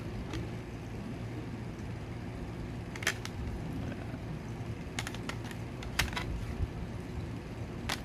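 Several sharp plastic clicks and taps, scattered a second or two apart, from hard plastic trading-card cases such as a graded card slab being handled, over a steady low background hum.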